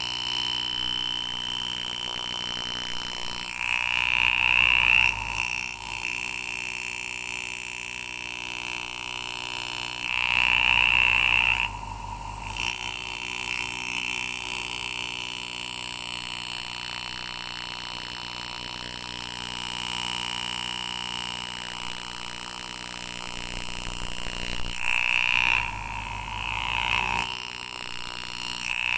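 Engraving tool buzzing steadily as it cuts the silver overlay of a copper rivet, with louder, harsher spells of a second or two about four seconds in, around ten seconds in, and near the end.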